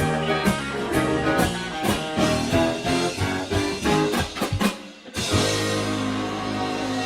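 Rock music with guitar and drums, breaking off briefly about five seconds in and coming back with a steadier, held sound.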